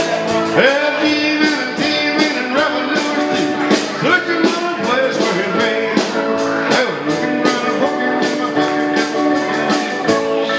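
Live country band playing an instrumental passage, with a lead instrument bending notes over a steady, quick drum beat.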